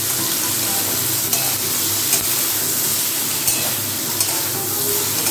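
Vegetables sizzling as they fry in hot oil in a steel kadai, stirred with a metal spatula that scrapes and clicks against the pan a few times.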